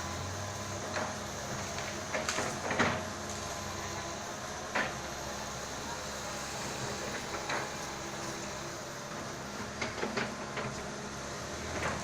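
Komatsu excavator's diesel engine running steadily, with short sharp knocks and cracks every few seconds, the loudest a little under three seconds in.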